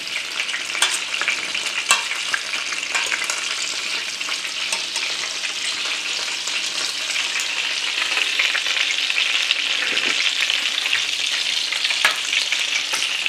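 Frikadellen (meat patties) frying in oil in a pan: a steady sizzle with scattered crackles.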